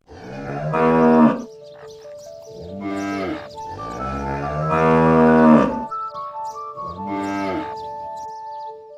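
Cattle mooing four times, the longest low call about four to six seconds in and the loudest about a second in, over soft background music with held notes.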